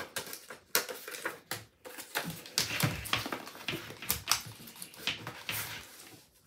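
Handling noises: irregular rustling and small clicks as tape and lash packs are handled and a paper label is stuck onto a metal mesh basket.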